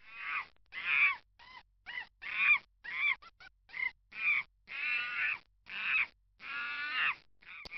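A mockingbird giving a rapid series of short, harsh, scratchy calls, about two a second, with brief silences between them.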